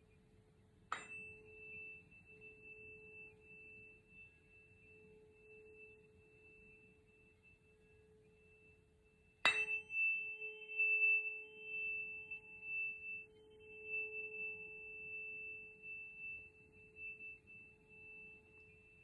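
Tuning fork in A, struck twice, about a second in and again about halfway through. Each strike rings on as a long, steady, pure tone with a faint high overtone above it, slowly fading.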